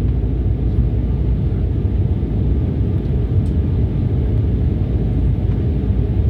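Steady low rumble of an Embraer 195 jet airliner, even in level throughout, with no distinct events.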